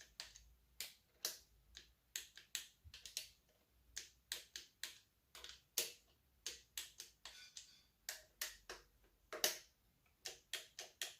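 Torque wrench ratcheting and clicking as bolts are torqued to 71 inch-pounds: a string of sharp, irregular clicks, two or three a second.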